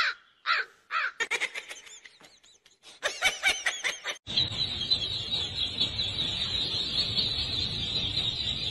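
A large crowd of ducklings peeping all at once: a dense, steady chorus of high calls that starts abruptly about four seconds in. Before that come a few short, separate pitched calls.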